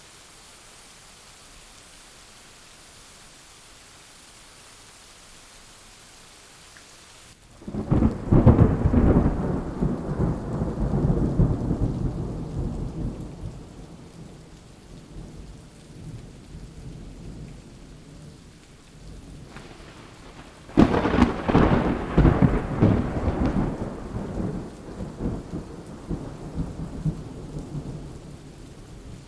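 Thunderstorm: steady rain, then two loud peals of thunder, the first about a third of the way in and the second about two-thirds in, each cracking sharply and rolling away into a long fading rumble under continuing rain.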